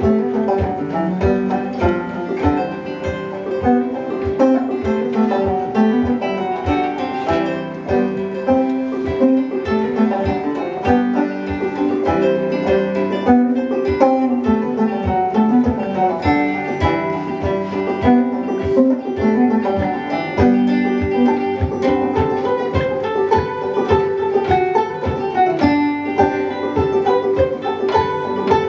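An instrumental old-time tune played on acoustic guitar and banjo: brisk plucked notes over a steady, even beat.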